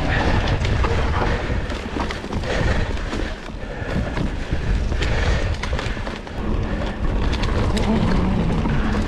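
Mountain bike riding fast over rough, leaf-covered forest trail: a steady heavy rumble of tyres on the ground and wind on the camera microphone, with many small rattles and knocks from the bike bouncing over the terrain.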